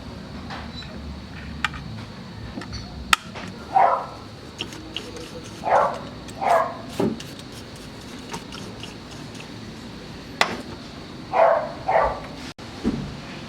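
A dog barking several times, mostly in pairs, with a few sharp clicks between the barks.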